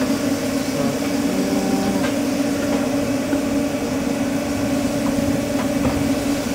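Steady machine hum inside a food truck: a low, even drone with a few faint clicks over it.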